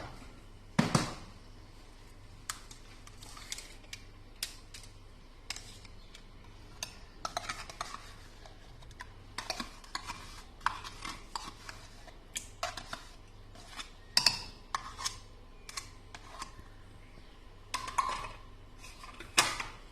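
A spoon and kitchenware clinking and knocking as ingredients are spooned into a container: scattered taps and clacks, with two louder knocks in the first second.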